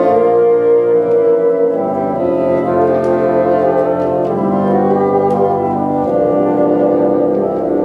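A bassoon ensemble playing sustained chords together, the harmony changing every second or two.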